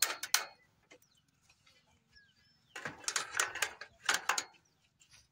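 Metal spanner clinking and rattling against bicycle nuts and fittings while the brake is adjusted: a few sharp clicks at the start, then a longer flurry of clinks about three seconds in.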